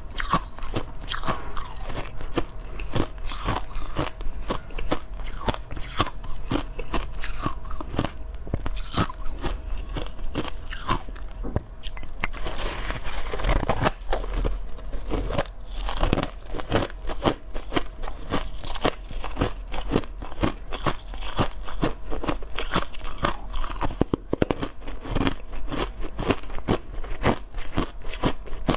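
Crushed ice being bitten and chewed at close range: a dense, irregular run of sharp crunches and crackles, with a short hissing stretch a little before halfway.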